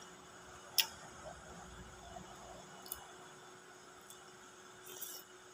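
Eating utensils clicking against a plastic soup container, with quiet eating sounds between. There are four sharp clicks, the first, about a second in, the loudest.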